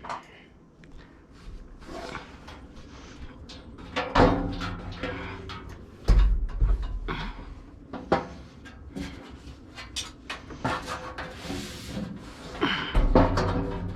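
Irregular knocks and clanks as a metal wall-mount network rack is handled and fitted onto a concrete block wall, with a few louder thuds among smaller clicks.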